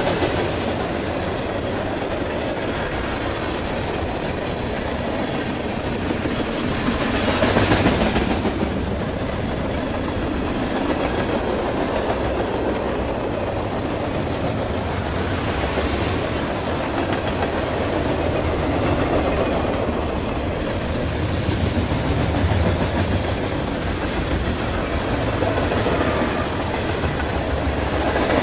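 Freight cars of a passing freight train (covered hoppers, tank cars, boxcars and gondolas) rolling by on the rails: a steady noise of steel wheels on track that swells louder about a quarter of the way in and again at the end.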